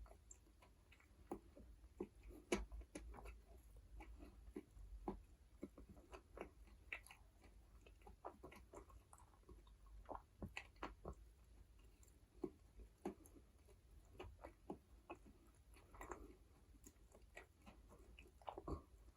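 Quiet, close-miked chewing of burger and fries: a run of soft, irregular wet clicks and smacks from the mouth.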